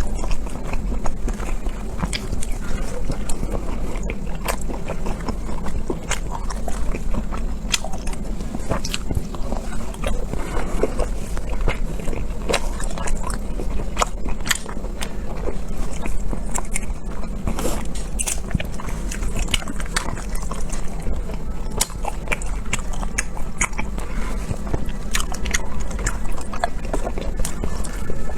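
A person chewing and biting food close to the microphone, with many small wet mouth clicks and smacks, over a steady low hum.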